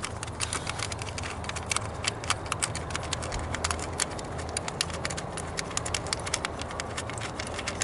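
Ratchet wrench with a 10 mm socket clicking in quick, uneven runs as the screws of the ignition coils' grounding wire are backed out.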